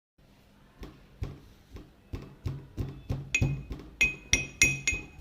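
A quick run of sharp knocks, about three a second and growing louder, the later ones with a bright metallic ring, over a faint hum.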